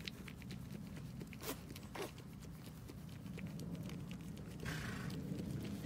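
Faint rustling and scattered light clicks from goats moving about in their pen while the doe tends her newborn kid, with a burst of louder rustling near the end.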